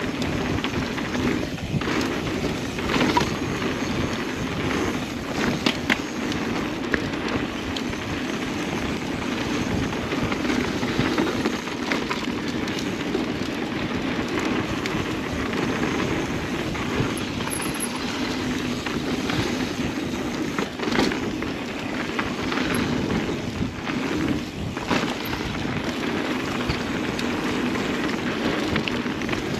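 Mountain bike rolling fast over a dirt singletrack trail: a steady rumble of knobby tyres on dirt with rattling from the bike and scattered sharp knocks over bumps and roots.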